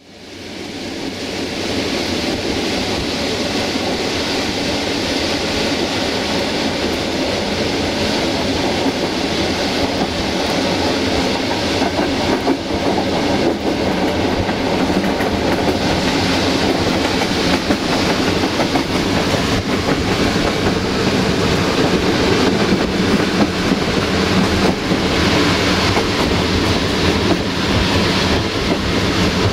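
A passenger train rolling along the track, heard from inside the coach: a steady rumble of wheels on rail with a clickety-clack over the rail joints. It fades in during the first second.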